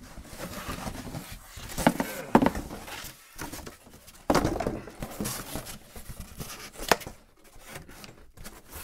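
A cardboard box being handled by hand: a few sharp knocks and taps, with scraping and rustling between.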